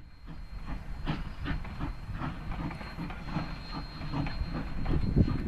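Distant narrow-gauge steam freight train on the move, its locomotive a 2-8-0, with a regular beat about two to three times a second over a low rumble, growing louder.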